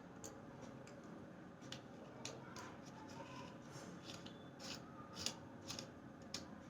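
Handling noise: scattered short clicks and light rubbing, with the sharpest click a little past the middle.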